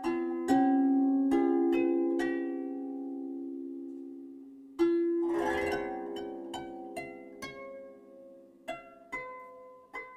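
Background music: a gentle plucked-string melody in the style of a harp, its notes struck one by one and left to ring. About five seconds in comes a brief rushing noise.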